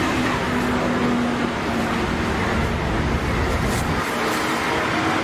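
Steady background din of a busy outdoor street market, an even wash of noise with no single sound standing out.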